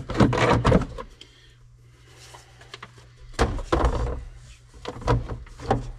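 Screwdrivers and plastic cab trim being handled in a tractor cab: clattering and scraping for the first second, then more knocks and scrapes around the middle and twice near the end, over a low steady hum.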